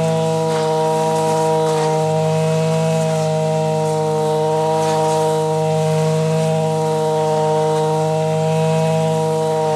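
Zenoah BCZ315 two-stroke brush cutter engine running at a steady high speed, a constant buzzing tone as the blade cuts through grass.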